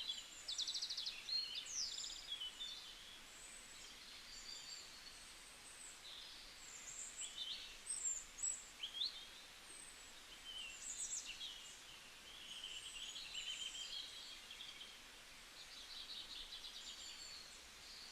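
Forest songbirds chirping and singing softly, many short calls and quick trills overlapping, over a faint steady background hiss.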